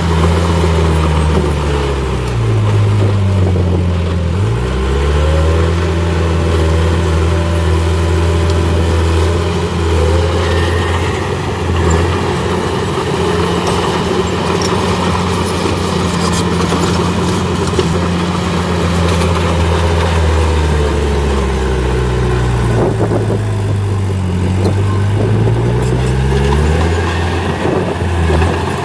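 Heavy diesel engine of earthmoving machinery running loud and steady, its engine speed dropping and then climbing back twice, once early on and once near the end.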